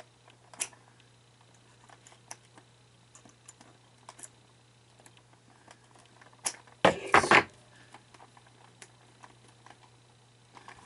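Small clicks and taps of a plastic animatronic figure's parts being handled and worked apart, with one loud rattling scrape about seven seconds in lasting about half a second. A faint steady low hum runs underneath.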